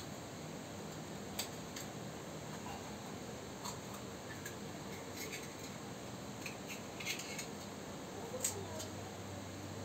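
Small knife prying and scraping at an oyster shell while shucking it: a handful of short, sharp clicks and scratches, over a steady hiss.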